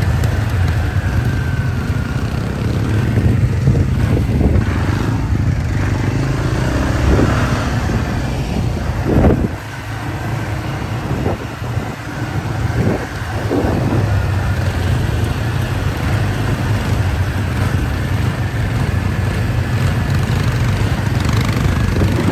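ATV engines running while riding, with wind rumbling on the microphone. The engine sound drops off briefly about halfway through and then picks back up.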